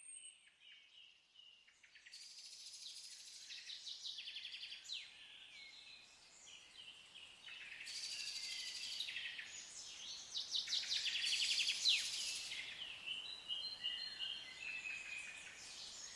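Several songbirds chirping and singing, with repeated rapid trills among the high calls.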